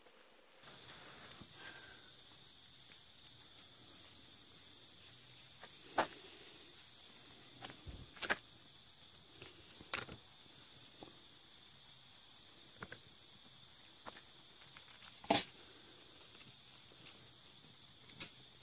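A steady, high-pitched chorus of insects, with a handful of sharp clicks scattered through it.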